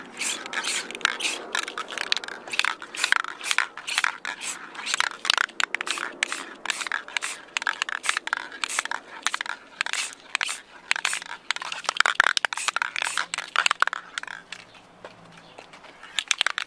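Aerosol spray-paint can being shaken, its mixing ball rattling in quick, irregular clacks, easing off briefly near the end.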